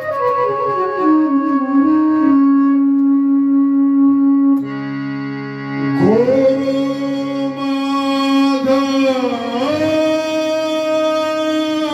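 Marathi devotional song music: a long sustained melody of held notes joined by slides, falling at the start and rising about six seconds in and again near ten seconds, with a lower steady accompanying note underneath for a few seconds in the middle.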